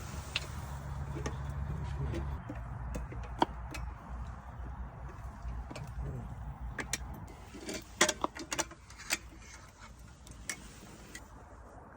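Scattered sharp clicks and light knocks over a steady low rumble, with a quick cluster of louder clicks about eight seconds in.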